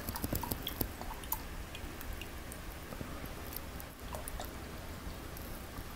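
Full cream milk pouring in a thin stream from a carton into a glass bowl of Maltesers and milk, a faint steady trickle. A few small clicks come in the first second or so.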